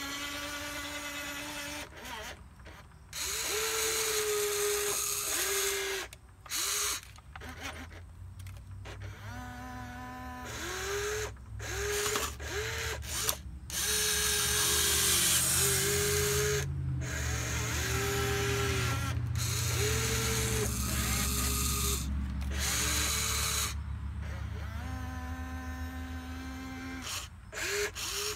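Electric motors of a Wltoys 16800 RC excavator whining in many short stop-start runs as the boom, arm and bucket move, each run rising briefly in pitch as it spins up and dropping as it stops. A deeper drone underlies much of the middle stretch.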